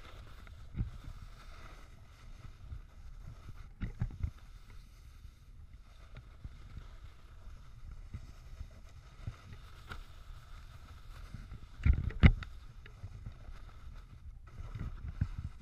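Snowboard sliding and scraping over uneven snow, with wind rumbling on the action camera's microphone. A few sudden thumps break in, the loudest about twelve seconds in.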